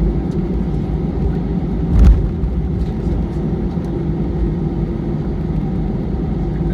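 Cabin noise inside an Airbus A320: a steady low rumble from its engines and airframe, with one loud thump about two seconds in.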